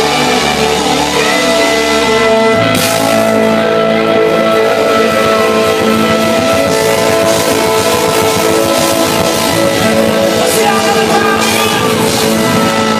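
Rock music with guitar and singing; the bass comes in about two and a half seconds in.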